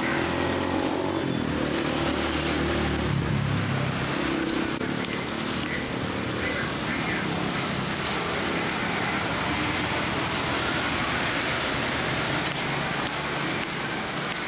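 Road traffic: a motor vehicle's engine hum passing in the first few seconds, over a steady broad rushing noise.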